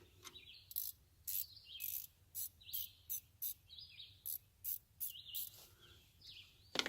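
A box-end wrench clicking and clinking in short, irregular strokes as a nylon lock nut on a bolt is tightened, about one or two clicks a second. Birds chirp in the background.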